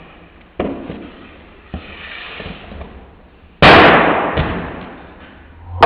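Hockey shots with a Bauer Vapor X60 stick: sharp cracks of blade on puck and puck striking. There are two lighter cracks in the first two seconds, then a much louder crack about three and a half seconds in that rings and fades over about two seconds.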